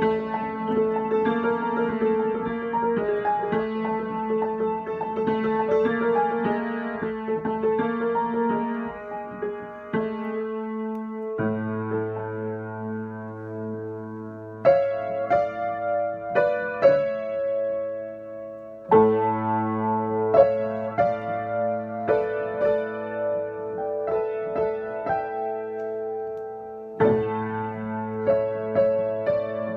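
Upright piano improvisation in a spooky mood: a fast repeated figure over held middle notes for the first ten seconds or so, then a low bass note held beneath slower, sharply struck chords and single high notes, with new bass notes entering twice more.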